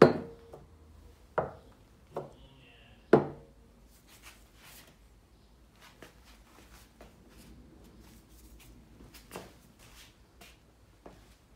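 Cans and bottles being set down and shifted on a wooden tabletop: four sharp knocks in the first three seconds or so, the first and last of them the loudest, then a softer knock about nine seconds in.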